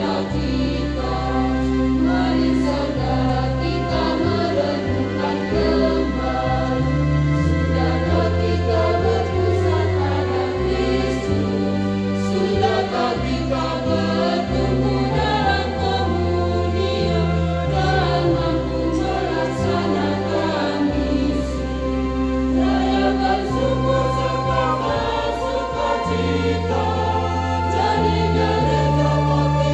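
Mixed church choir singing a hymn in parts, with sustained low bass notes underneath that change every second or two.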